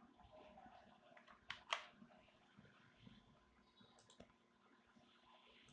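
Computer mouse button clicks over near-silent room tone: a sharp pair of clicks about a second and a half in, and a fainter pair about four seconds in.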